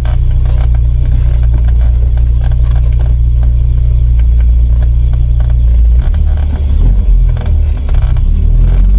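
Volvo B230F 2.3-litre four-cylinder engine and road noise heard from inside the moving car: a steady low rumble that shifts in pitch about six seconds in.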